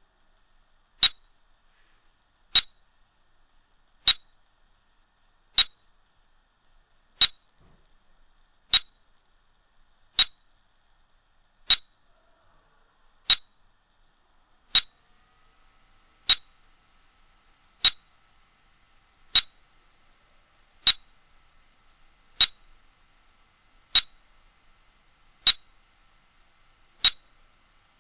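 Quantum bio-electric health analyzer (AH-Q10) beeping during a test scan: a short high beep repeating evenly about every one and a half seconds while the test runs.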